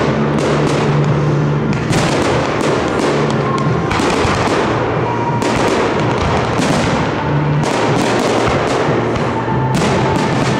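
Aerial firework shells bursting in quick succession, a dense run of bangs and crackle with a sharper report every second or so.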